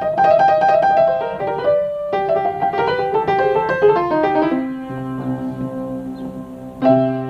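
Upright acoustic piano played by hand: a quick melody with a run stepping down about four seconds in, then a low chord held for about two seconds, and a new phrase struck near the end.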